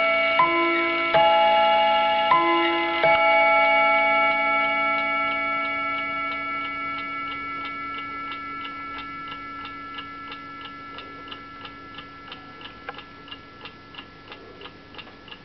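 Small Hermle mantel clock movement striking its ting-tang chime on rods: two pairs of alternating high and low notes in the first three seconds, ringing on and fading slowly. As the chime dies away, the fast, even ticking of the floating balance comes through.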